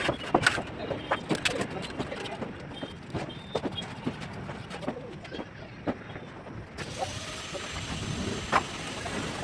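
Irregular sharp taps and clinks of bricklaying work, such as a mason's trowel striking bricks and mortar. About seven seconds in the sound changes to a steadier hiss with only occasional taps.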